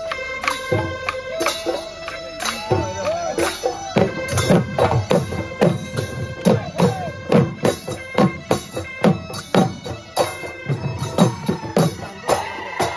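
Bihu music played live: several Assamese dhol drums beaten together in a driving rhythm of about two loud strokes a second, with a wind instrument holding long notes over the drums.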